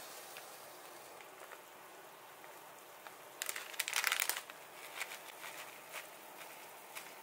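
Small plastic bag of dried red chili flakes crinkling loudly for about a second, a little over three seconds in, as the flakes are shaken out into a hand, followed by a few softer rustles and ticks. A low steady hiss runs underneath.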